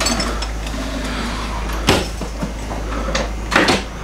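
Wooden sideboard cutlery drawers being pushed shut: a knock about two seconds in and a quick double knock near the end, over a steady low hum.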